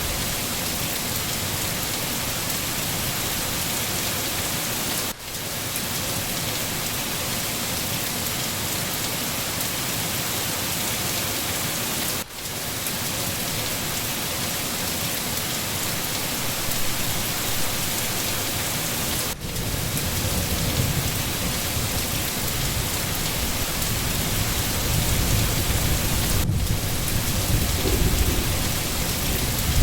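Steady heavy rain falling in a forest, an even dense hiss, with a low rumble of distant thunder building up in the second half. The hiss briefly drops out four times, about every seven seconds.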